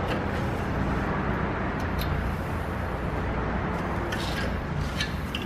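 Branson 2400H tractor's diesel engine idling steadily, with a few light metal clicks from the loader's parking stand being handled.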